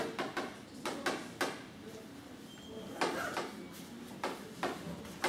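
Chalk on a blackboard: a series of sharp taps and short scratches as lines and letters are written, in bunches with short pauses between.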